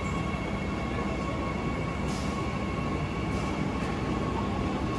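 KRL Commuter Line electric train at the platform, giving off a steady electrical whine and hum over a rumble of running noise. A couple of short hisses come about two and three and a half seconds in.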